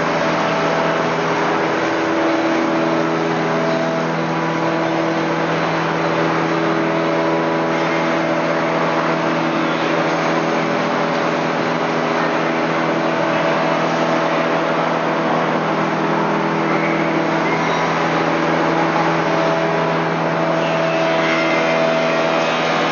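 BOMAR metal-cutting band saw running: a steady machine hum over an even noisy wash, unchanged throughout.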